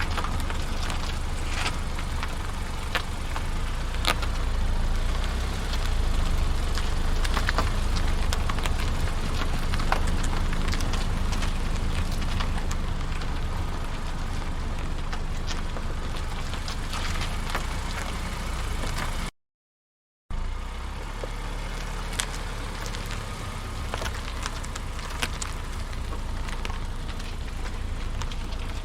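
A car running and driving, with a steady low engine rumble and scattered light ticks. About two-thirds of the way through it cuts off for about a second, then a similar steady car rumble starts again, slightly quieter.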